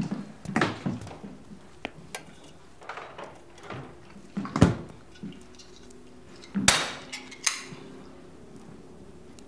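Scattered knocks, taps and clatters of household objects being handled. There is a sharp knock about four and a half seconds in and two brighter clattering sounds around seven seconds.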